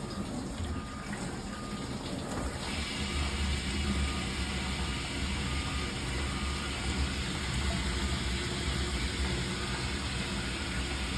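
Dishwasher running: water is heard filling at first, then about two and a half seconds in the wash pump comes on with a steady low hum and a hiss of water spraying inside the tub.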